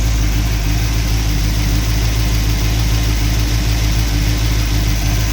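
Mopar car engine idling steadily, with a thin steady tone running alongside it. The owner suspects a failing ignition coil is making it lug and stall.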